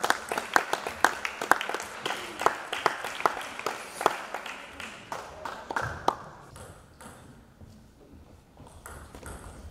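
Table tennis balls clicking off bats and table in quick rallies, several hits a second, thinning out after about six seconds.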